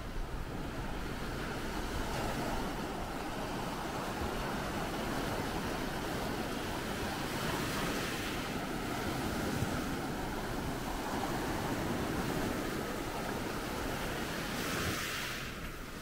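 Small sea waves breaking and washing up over sand and rocks: a steady hiss of surf that swells and ebbs, with a stronger wash shortly before the end.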